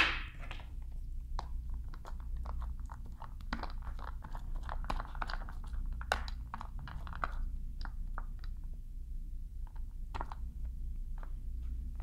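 Paint roller being worked through contact cement adhesive in a paint tray, giving scattered sticky clicks and crackles, over a low steady hum.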